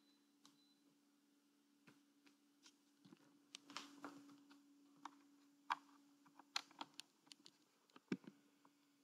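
Faint scattered clicks and light knocks over a steady low hum. The clicks are thickest from about three seconds in until near the end.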